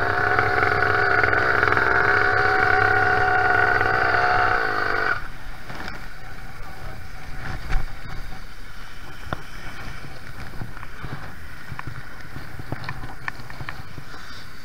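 Zeda 80 two-stroke motorized-bicycle engine idling steadily, then stopping suddenly about five seconds in. After that there is a quieter steady hiss of rain and wet street, with scattered light ticks and one short thump.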